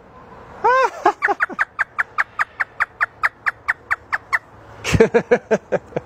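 African grey parrot doing its imitation of a hysterical laugh: a rapid run of short, high cackling notes, about six a second, lasting some three seconds.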